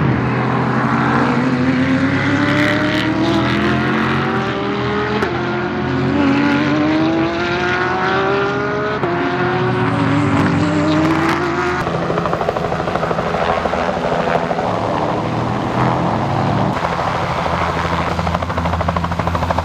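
A Cadillac DPi prototype race car accelerating up through the gears: its engine note climbs and drops back at each upshift for about the first twelve seconds. Then a Bell 206-type medical helicopter hovering just off the ground, its rotor beating in a fast, steady chop over the turbine.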